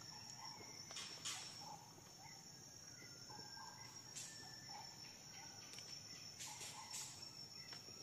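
Forest insects, crickets or cicadas, giving one steady high-pitched drone, with faint short bird-like chirps and a few soft sharp clicks now and then.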